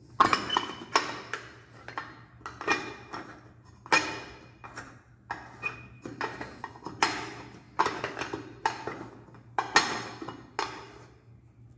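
Chrome cover of a wall shower valve being fitted and screwed back onto the valve stem by hand: a series of light metallic clinks and scrapes, each with a brief ring, about one a second.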